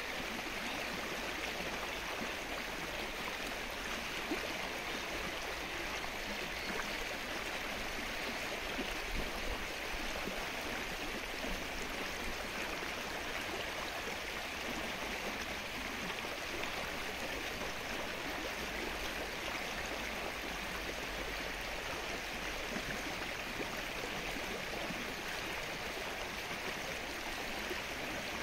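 Rain falling steadily on open lake water.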